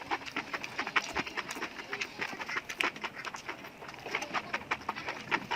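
Close-miked eating sounds: a person chewing food with quick, irregular wet mouth clicks and smacks.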